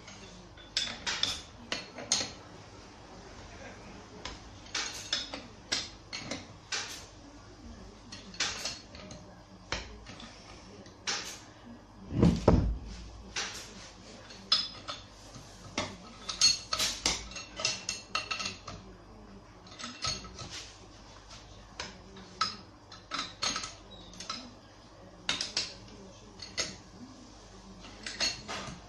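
Metal clicks and clinks from a socket wrench on an extension bar, worked in short runs as bolts are tightened into a Hyundai Atos engine block. One heavier thump comes about twelve seconds in.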